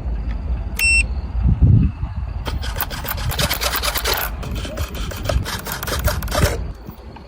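Radio-controlled model helicopter in flight test: a low rumble under a short electronic beep about a second in, then a loud, fast-chopping whirring hiss for about four seconds that cuts off near the end.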